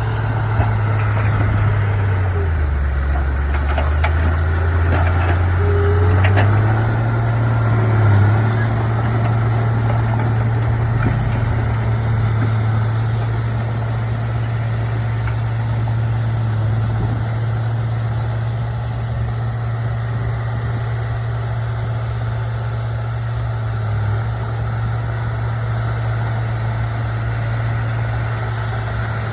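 Bulldozer's diesel engine running steadily. Its pitch drops about two seconds in and climbs back up about six seconds in.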